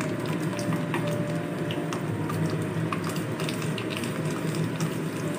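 Mustard oil with nigella seeds and crushed garlic sizzling as it heats in a small pan, with a steady crackle of many small pops from the seeds and garlic. The oil is being warmed gently to infuse, not taken to smoking.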